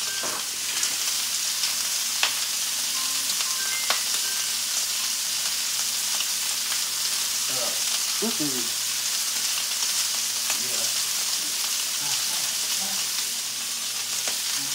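Lamb chops and steaks searing in hot cast-iron skillets: a steady sizzle of meat frying in fat, with two light clicks about two and four seconds in.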